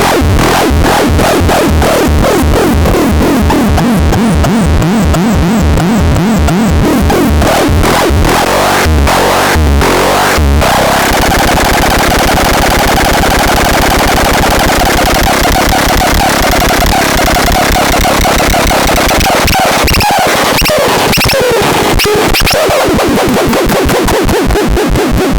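Loud electronic synthesizer sound with a rapid pulsing beat and wobbling, sweeping pitches; the pulsing gets faster and denser about eleven seconds in, turning into a harsh, noisy texture.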